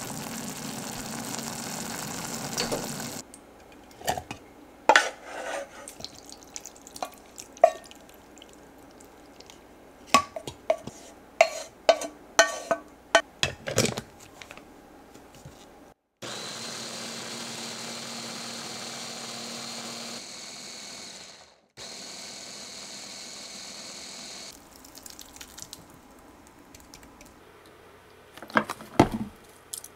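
Electric hand blender with a chopper bowl puréeing boiled broccoli and onion: a steady motor whine for about five seconds, a brief stop, then a second, shorter run of about three seconds. Before it, the simmering pan hisses for the first three seconds, followed by a scatter of clacks and knocks. Near the end, milk is poured in with a short splash.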